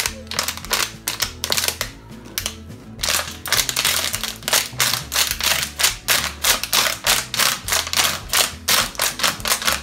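Rapid crackling clicks from a plastic water bottle being squeezed and shaken to push Orbeez water beads through its neck into a balloon. The clicks come in scattered bunches at first, then turn fast and continuous about three seconds in.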